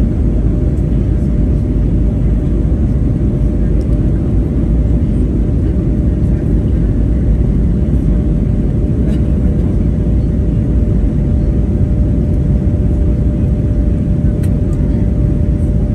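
Steady cabin noise inside an Airbus A320neo airliner in flight: a loud, even, low rushing drone of airflow and engines, with a thin steady hum tone above it.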